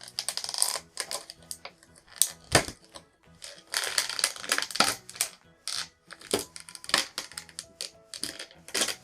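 Plastic toy packaging crinkling and clicking in irregular bursts as small action figures are worked loose from it by hand.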